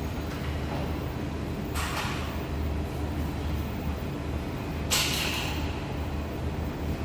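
Steady low machinery hum, with two sudden hissing bursts that fade away, about two and five seconds in; the second is the louder.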